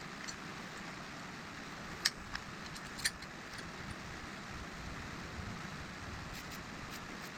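Light metallic clinks of tools or fork parts being handled: two sharp clinks about two and three seconds in and a few fainter ticks, over a steady hiss.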